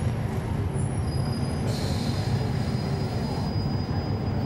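Cabin sound of a NABI 416.15 transit bus with a Cummins ISL9 diesel engine: a steady low engine rumble. About two seconds in, a high hiss comes and goes over roughly two seconds, with a faint thin high whistle beside it.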